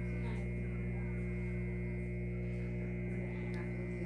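Steady electrical hum, a stack of low tones with a faint thin high whine above it, unchanging throughout.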